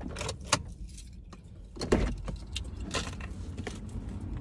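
Keys jangling with scattered clicks and light knocks as things are handled inside a car, over a low rumble; the sharpest knock comes about two seconds in.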